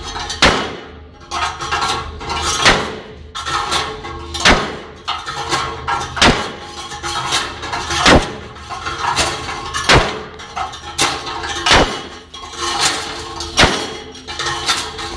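A drop weight in a slab impact tester strikes a ferrocement slab over and over, a sharp knock about every two seconds, with metallic clatter between the blows. These are the repeated blows of a drop-weight impact test, and the slab is cracking under them.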